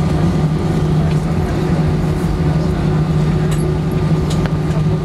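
Steady cabin noise of a jet airliner taxiing on the ground: an even, low engine hum with a thin, steady higher whine over it, and a few light clicks in the cabin near the middle.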